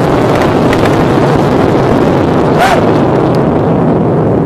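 Loud, steady roar of a bombed weapons depot burning and exploding, with a few scattered sharp pops and one short burst partway through.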